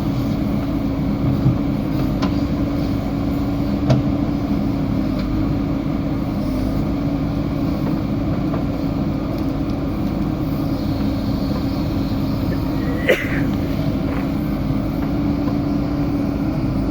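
JCB 3DX backhoe loader's diesel engine running steadily with a constant hum, with a few sharp knocks, one about four seconds in and another near 13 seconds.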